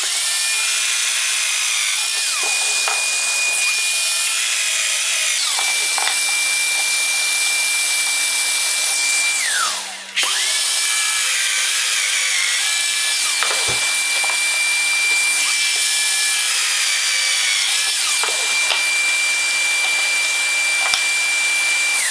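Domino joiner's motor whining at a steady high pitch, sagging in pitch and recovering several times as the cutter plunges into the hardwood to cut mortises. About halfway through it is switched off, winds down and is started again at once.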